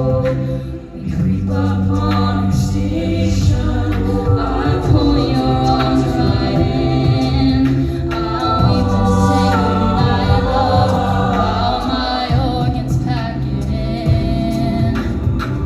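High school a cappella group singing in harmony, with no instruments, over a low bass part that holds each note for a few seconds; the sound drops briefly about a second in.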